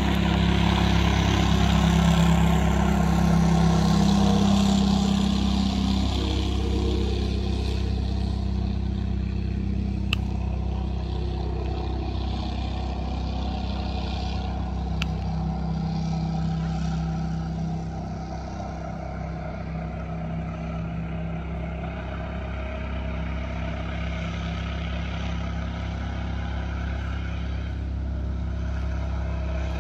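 A Gator-Tail GTR 37 XD surface-drive mud motor's V-twin engine running flat out, driving an 18-foot aluminum SeaArk mud boat on a top-speed run. It is loudest in the first few seconds as the boat passes, then fades and holds steady as the boat runs farther off.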